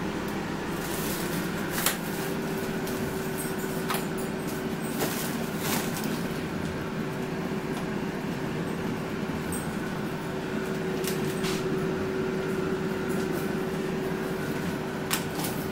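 Air fryer running, its fan giving a steady whirring hum with one constant tone, with a few faint clicks over it.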